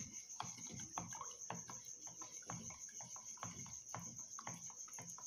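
Wooden spoon stirring water in a plastic measuring jug, with light clicks of the spoon against the jug's sides a few times a second. A steady, high-pitched pulsing trill runs underneath.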